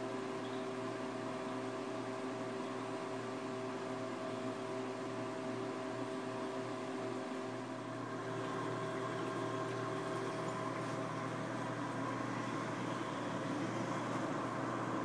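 Steady hum of reef aquarium equipment, pumps and powerheads running, with a fixed set of droning tones over a water-like hiss. It grows slightly louder and brighter about eight seconds in, as the phone comes up close to the tank.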